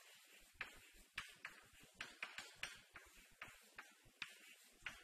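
Chalk on a blackboard: faint, irregular short taps and scratches as equations are written, about three strokes a second.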